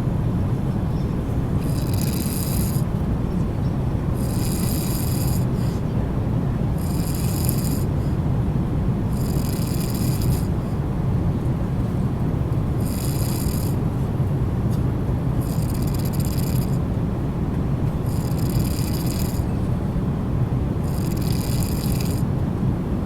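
A man snoring, one snore about every two to three seconds, eight in all with a longer pause midway. It sits over the steady drone of an airliner cabin.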